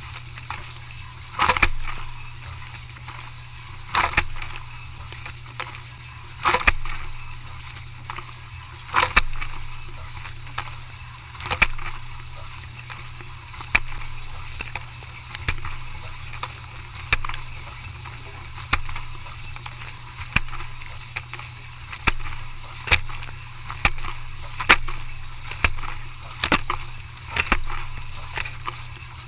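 Dishes and utensils clattering at a dishwashing machine over a steady low machine hum and hiss. The sharp clatters come every couple of seconds at first, then about once a second.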